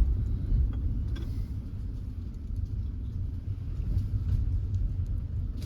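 Small Kia rental car driving, a steady low rumble of engine and road noise.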